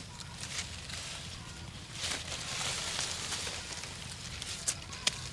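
Leaves and branches rustling, louder for a second or so in the middle, with a few sharp snaps near the end.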